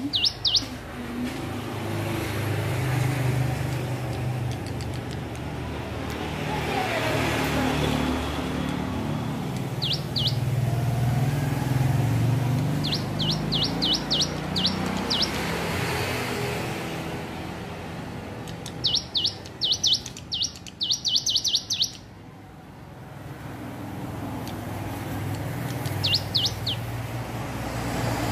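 Ciblek gunung (a prinia) practising its song: short, sharp, high chirps in quick groups, the longest and loudest run a little past the middle. Under it runs a steady low rumble like distant traffic.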